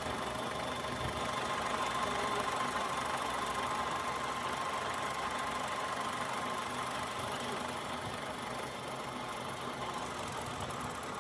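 Milling machine running steadily, a continuous mechanical hum with a faint steady whine over it.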